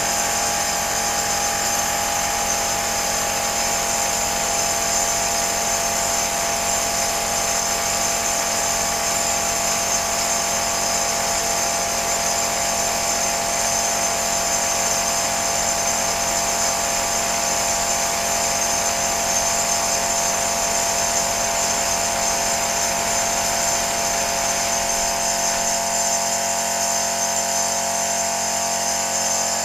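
Small portable air compressor running steadily with a high whine, under the hiss of air and paint from a spray gun as a bus body is spray-painted.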